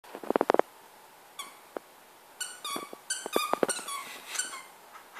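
Squeaker inside a plush elephant toy squeaking as a puppy bites it: a string of short, flat-pitched squeaks starting about a second and a half in, with a quick patter of knocks near the start and a few more among the squeaks.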